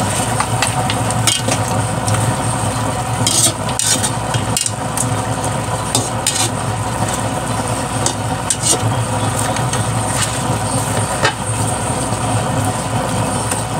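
Chicken pieces sizzling in a large aluminium wok as a metal spatula stirs them, with scattered clinks and scrapes of the spatula on the pan; the chicken is cooking down in its own released juices. A steady low hum runs underneath.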